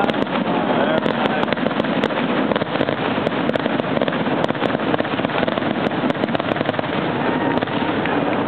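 Fireworks grand finale: a dense, unbroken barrage of rapid bangs and crackling.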